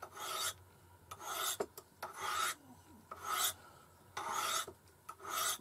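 Knife blade drawn along a honing steel (musat), six scraping strokes about one a second as the edge is honed.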